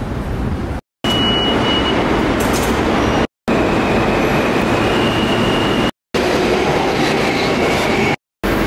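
New York City subway train running with a steady rumble and rush. The sound comes in short clips cut apart by brief dead silences, with a thin steady whine in some of them.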